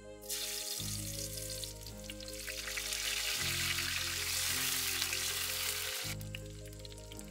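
Chopped garlic dropped into hot coconut oil in a clay pot, frying with a loud sizzle that starts suddenly, is strongest around the middle and eases off about six seconds in as green leaves fry with it.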